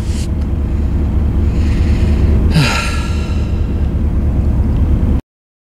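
Steady low road and engine rumble inside the cabin of a moving Chevy G30 van, with a short breathy sigh from the driver about two and a half seconds in. The sound cuts off abruptly near the end.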